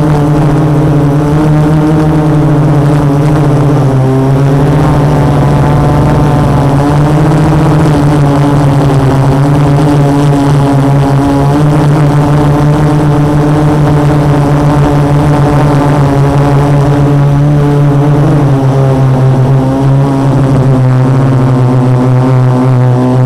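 Four brushless motors (MultiStar 2212 920 kV) spinning 12-inch carbon-fibre props on a quadcopter in flight, heard from its onboard camera as a loud, steady buzzing hum. The pitch dips and rises slightly a few times as the throttle changes.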